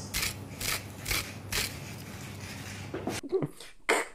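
Salt being added to a pot of water in a run of short strokes, about two a second, with a pause in the middle.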